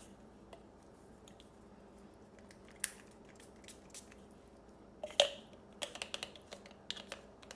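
Scattered light clicks and taps from handling a small Scentbird perfume case, with a few sharper clicks about three seconds in and a cluster around five to seven seconds.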